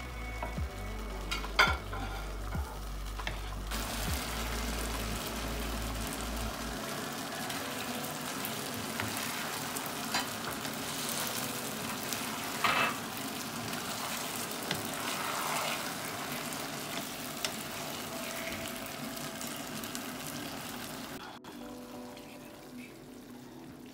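Sweet and sour sauce with vegetables and fried chicken pieces sizzling in a non-stick frying pan while a wooden spatula stirs, with a few knocks of the spatula against the pan. The sizzle picks up a few seconds in and cuts off suddenly near the end.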